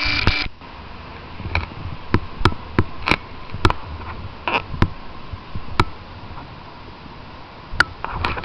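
A steady buzzing tone cuts off about half a second in. It is followed by about ten sharp, irregular cracks and pops, spaced between half a second and two seconds apart, over a low background hiss.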